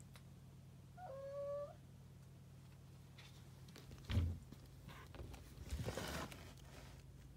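A cat gives one short, level meow about a second in. About four seconds in there is a loud thump, followed by a scraping rustle a second and a half later.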